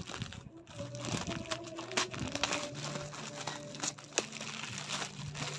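Plastic courier mailer bag crinkling and rustling as it is handled and cut open with scissors, with irregular sharp snips and crackles. Faint music plays underneath.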